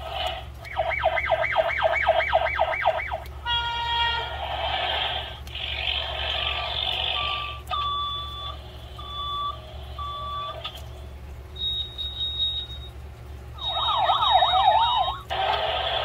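Small speaker of a children's vehicle sound book playing a string of button-triggered sound effects: a fast wailing siren, a brief steady tone, stretches of rough noise, three evenly spaced beeps, a high steady tone, and another fast wailing siren near the end.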